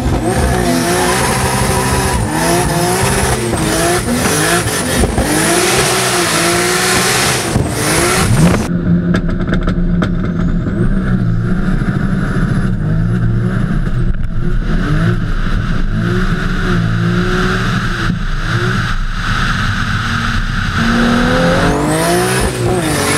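Turbocharged 2JZ straight-six in a swapped Mustang pulling hard through the gears. Its pitch climbs and drops back again and again at the shifts.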